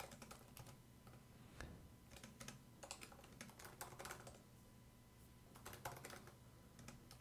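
Faint typing on a computer keyboard: irregular keystrokes in short bursts with pauses between, as shell commands are entered.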